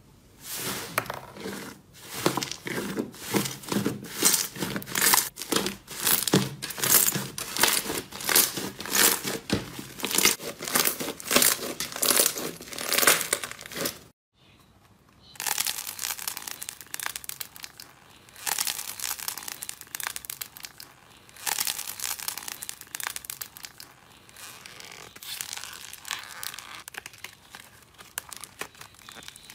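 Hands working slime: a blue fluffy slime pressed and squeezed in repeated crackly squishes, about two a second. After a brief silent cut, a thick pink slime is stretched and pulled apart with a dry, crinkly tearing crackle.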